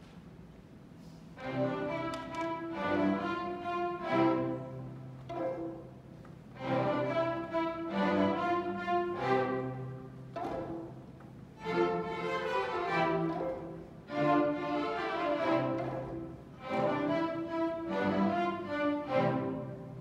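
A student string orchestra of violins and cellos playing. It comes in about a second and a half in, in phrases of a few seconds, each followed by a short pause.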